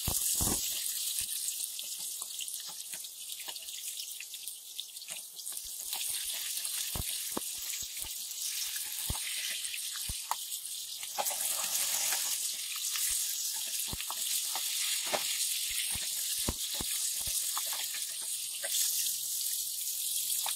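Sliced onions and whole red chillies sizzling in hot oil in an aluminium frying pan as they brown for a tadka, a steady hiss. Scattered taps and scrapes come from a wooden spatula stirring them against the pan.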